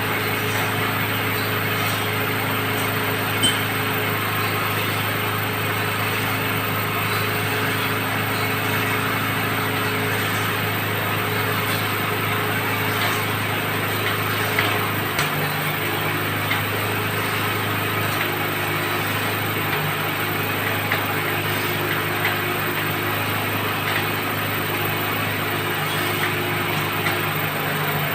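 Well-drilling rig's engine running steadily under load, with a few brief sharp knocks. Its note shifts about halfway through.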